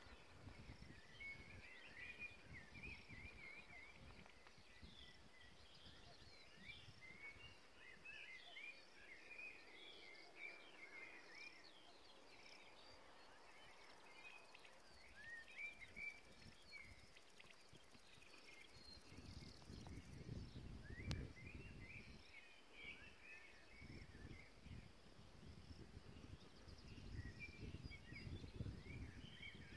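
Faint birdsong, many short chirps and trills from small birds, with wind rumbling on the microphone at times, most strongly about two thirds of the way through and again near the end.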